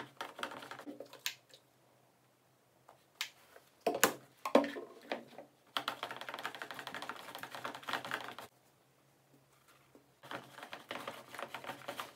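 Homemade slime being mixed and worked: stretches of rapid clicking, stopping twice for a second or two, with a few louder knocks about four seconds in.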